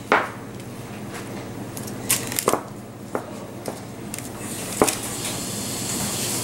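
A handful of short, irregularly spaced knocks and taps as a pie dish is turned on a table and its crust edge is crimped by gloved fingers, over a steady low hum.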